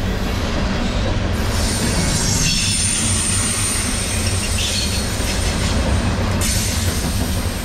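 Freight cars of a CSX manifest train rolling past close by: a steady rumble of steel wheels on rail, with high-pitched wheel squeal coming and going.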